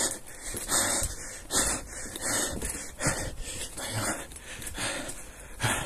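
Heavy, rhythmic panting close to the microphone, about one hissing breath every 0.8 seconds.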